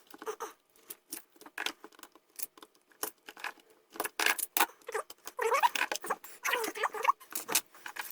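A small knife working on a mains cable's plastic insulation: a run of small clicks and scrapes, turning into a series of squeaky scraping sounds from about five seconds in.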